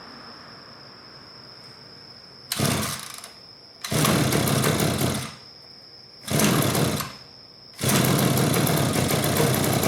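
The small engine of an old lawn mower comes up loudly three times in short spells of about a second, falling back between them. From about eight seconds in it keeps running loud and steady.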